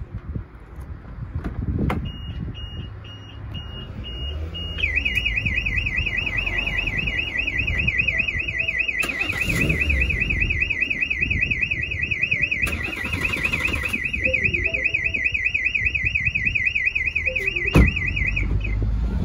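Starline S96 aftermarket car alarm going off after the door lock is picked: a few short high beeps, then a loud fast warbling siren rising and falling several times a second, which cuts off suddenly near the end. A sharp click about two seconds in and another just before the siren stops.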